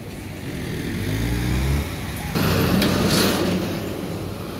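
Cars passing on a city street. About a second in, an engine's note rises as a car pulls away, then a car drives close by with a rush of tyre and engine noise that peaks about three seconds in and fades.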